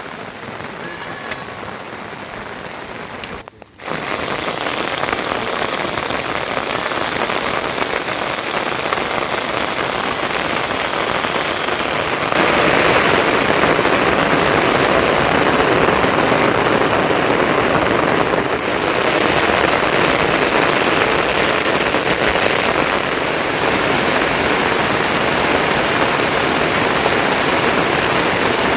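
Steady hiss like rain falling, with a brief break near the start and growing louder about twelve seconds in. A couple of short high calls, like sheep bleating, come in the first seconds.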